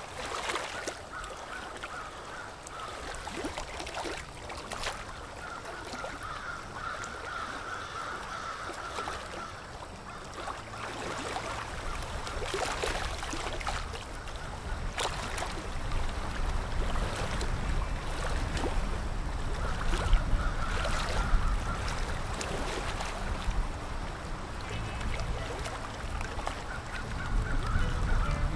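A flock of waterfowl calling, a steady chatter of honks with sharper single calls rising out of it. Under it a low rumble builds from about a third of the way in.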